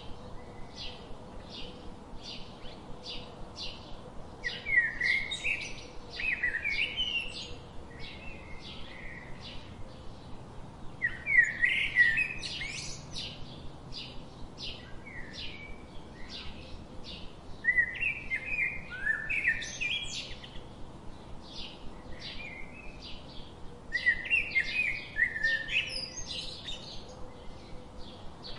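Songbirds singing: a steady series of short high chirps, about two a second, with louder warbling phrases of rising and falling notes breaking in about every six or seven seconds.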